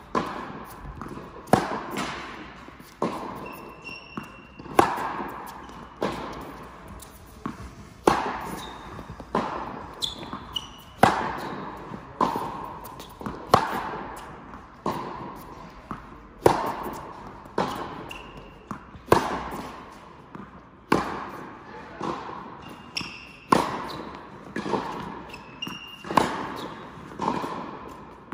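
Tennis balls struck by rackets and bouncing on an indoor court in a steady rally, about one sharp hit a second, each echoing in the hall. Short high shoe squeaks come between the strokes.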